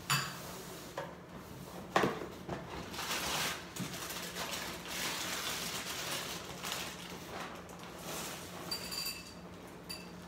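A spoon or bowl clinks, then a cereal box and its plastic inner bag rustle and crinkle for several seconds as the box is opened. Near the end, dry cereal pieces rattle into a bowl as it is poured.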